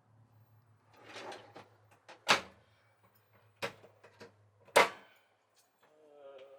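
Travel-trailer galley cabinet doors and drawers being handled: a short rustle, then three sharp knocks a little over a second apart as they are shut.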